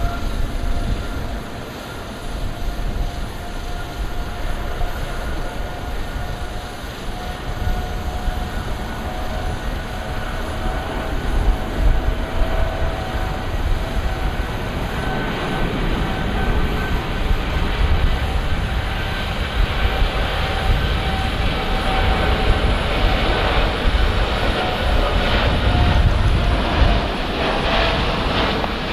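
Boeing 787-9 jet engines running at power for the takeoff roll: a steady two-tone whine over a rushing roar that grows louder toward the end, with a low rumble underneath.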